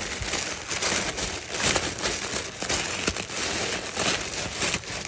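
Tissue paper crinkling and rustling as it is pulled open and unfolded by hand, a dense run of close-packed crackles.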